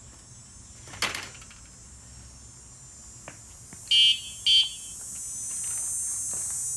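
A sharp knock about a second in, then two short, loud electronic beeps half a second apart, followed by a high hiss that slowly swells.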